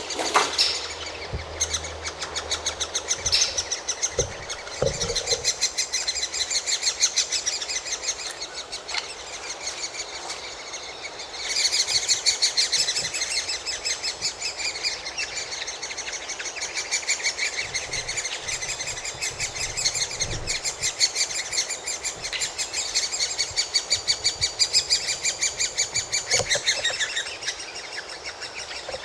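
Great spotted woodpecker nestlings calling from the nest: a continuous fast chatter of high chirps, many a second, the begging of chicks waiting to be fed. The chatter grows louder about a third of the way in. A few short knocks sound in the first few seconds.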